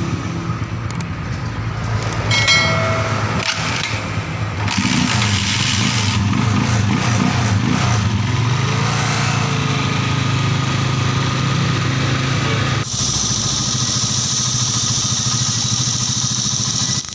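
Small Chinese microbike engine, running on a newly fitted 4-pin Lifan CDI, catching and then running steadily. A few seconds before the end the sound changes abruptly and a strong high hiss comes in.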